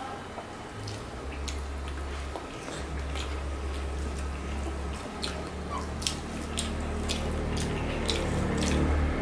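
Fingers mixing rice with egg curry on a plate: soft wet squishing with scattered sharp, sticky clicks as the hand kneads the food, over a steady low hum.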